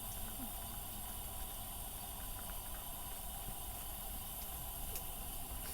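Hot-pot simmering on a burner: a steady soft bubbling hiss with a few faint ticks.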